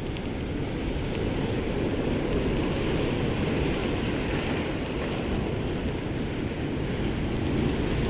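Rough Black Sea surf breaking and washing over shoreline rocks as a steady rush of water, with wind buffeting the microphone.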